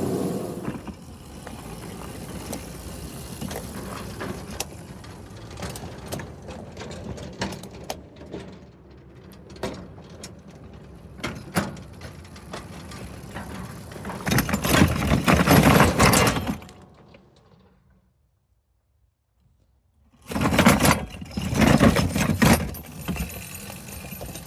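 Small locomotive running with a continual mechanical rattle and clicking from its gears and drive chains and wheels on the track, growing into a loud clatter about two thirds of the way in. It cuts out briefly and then clatters loudly again.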